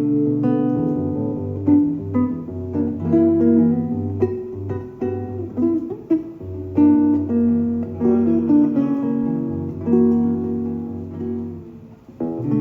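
Live music: a guitar playing an instrumental passage of picked notes and chords over a steady bass line, with a brief drop shortly before the end as the next chord comes in.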